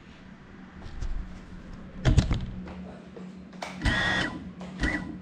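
Small GEPRC Cinelog 35 FPV drone crashing: a sharp knock about two seconds in, then two short bursts of motor and propeller noise with a whine near four seconds and again near five, over a steady low hum, after which the drone lies still.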